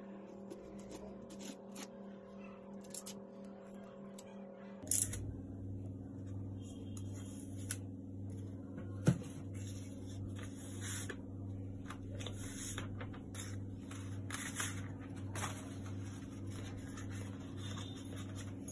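Hands opening a cardboard mailing tube, then pulling out and unrolling a rolled paper sheet: scattered rustles, crinkles and taps, with one sharp click about nine seconds in. A steady low hum runs underneath, changing about five seconds in.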